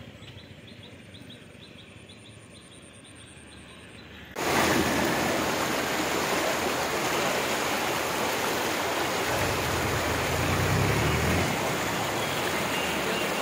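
Turbulent Brahmaputra floodwater rushing over a road. It starts abruptly about four seconds in, after a faint hiss, then runs as a loud, steady rush, with a low rumble for a couple of seconds near the end.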